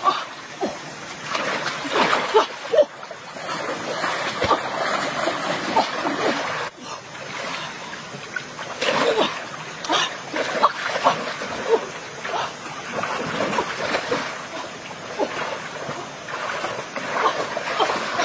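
Irregular splashing in a shallow stream as a person lunges and gropes through the water with her hands, chasing fish.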